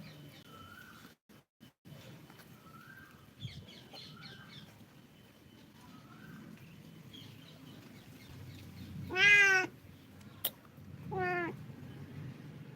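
A cat meowing twice, loud, about two seconds apart in the second half, the first call longer than the second. Fainter short chirps come before the meows, and there is a single sharp click between them.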